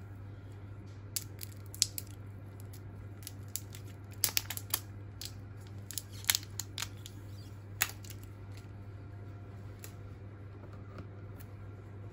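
A first-generation Apple Pencil being handled: a scatter of sharp small plastic clicks and taps over several seconds as its cap is worked and its connector is fitted into the iPad's Lightning port. A steady low hum runs underneath.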